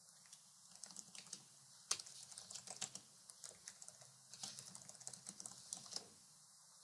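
Computer keyboard typing, faint, in quick irregular runs of keystrokes, with one louder key strike about two seconds in.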